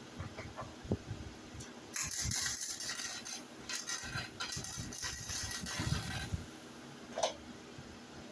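MIG welding arc crackling for about four seconds, a test tack or pass to set the machine's heat for thin square tubing, with a few light knocks before it and a sharp click near the end.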